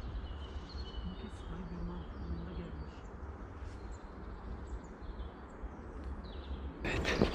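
Scattered faint bird chirps over a steady low rumble. About a second before the end, a sudden burst of rustling and handling noise.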